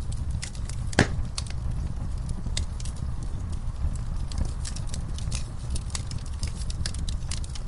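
Wood fire burning in a fireplace: irregular sharp crackles and pops over a steady low rumble, with one loud pop about a second in.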